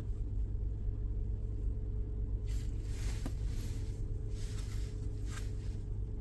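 Honda Pilot's 3.5-litre V6 idling, a steady low rumble heard inside the cabin. A few light clicks and rustles come from the remote-start module and its wiring being handled.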